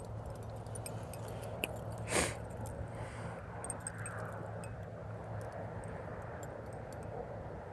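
Faint clicking and handling noise from fishing gear as a line is worked in, over a steady low hum, with one short rushing sound about two seconds in.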